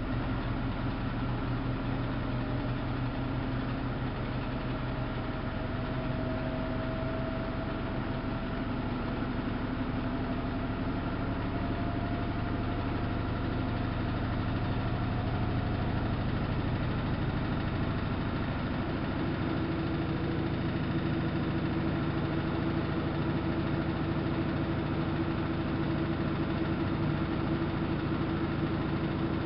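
Samsung WF71284 front-loading washing machine running, its motor and drum giving a steady mechanical hum. A faint tone slowly rises in pitch through the first half, and about two-thirds in the hum shifts to a new steady pitch.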